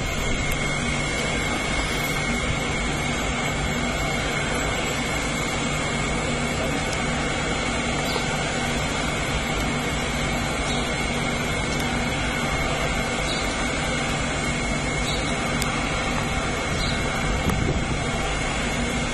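Oil pyrolysis plant machinery running steadily: an even rushing hum with a constant high whine over it.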